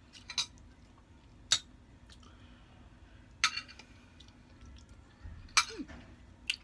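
Eating utensils clinking against a plate during a meal: five short, sharp clinks spaced a second or two apart.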